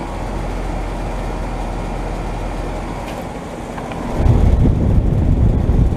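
2018 Lennox Merit series 3-ton air-conditioner condenser running: a steady whir with a low hum, its compressor probably a Copeland scroll. About four seconds in, the sound turns louder and deeper, with a heavy low rumble and a low steady tone.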